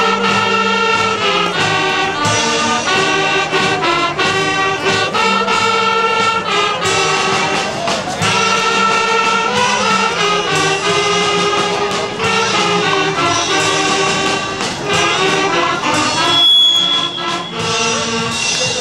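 Live music: a choir singing sustained notes with instrumental accompaniment. About sixteen seconds in, the music briefly thins and a short high steady tone sounds.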